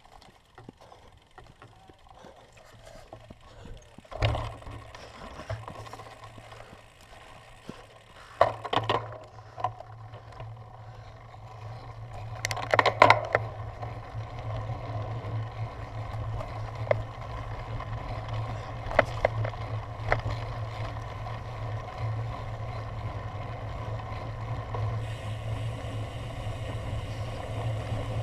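Cyclocross bike ridden over a bumpy grass course, picked up by a camera mounted on the rider or bike: scattered knocks and rattles, loudest in a cluster about 13 seconds in, then a steady rolling rumble over the second half.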